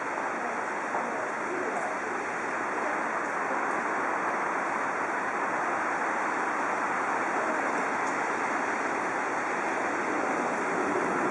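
Steady rushing noise that grows slowly louder toward the end as a Yokohama Municipal Subway Green Line 10000-series train approaches the platform.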